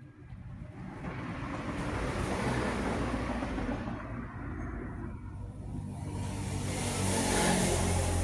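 Road vehicles passing by: a rushing noise that swells twice, once around three seconds in and again, louder, near the end.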